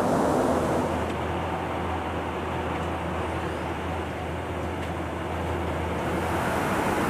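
Steady in-flight jet aircraft noise, as heard from inside an aircraft: an even rush with a constant low hum. It turns duller and slightly quieter about a second in, and brightens again near the end.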